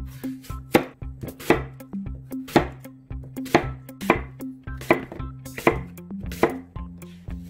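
Kitchen knife cutting through an apple and striking a wooden cutting board about once a second as the apple is quartered, cored and sliced.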